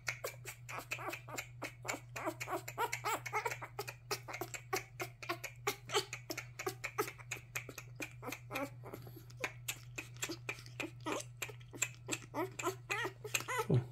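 Newborn puppy suckling at a feeding-bottle nipple: a quick run of small wet smacking clicks, several a second, from a puppy still getting used to bottle feeding. A steady low hum runs underneath.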